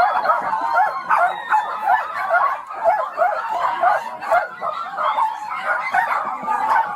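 Many dogs barking and yipping at once, a dense, continuous chorus of overlapping barks with no pauses, from dozens of dogs kept together in one house.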